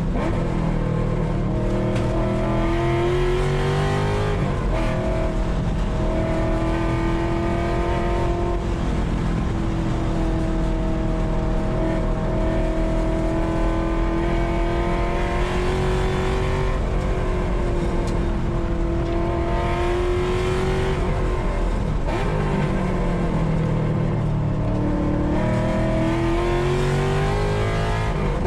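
A car engine running at high revs under load, its pitch climbing steadily and then breaking off several times at gear changes or lifts off the throttle.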